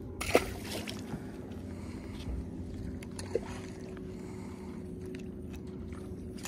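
Steady low hum and wind-and-water noise around a small fishing boat, with a sharp click about a third of a second in and another smaller click about three seconds later.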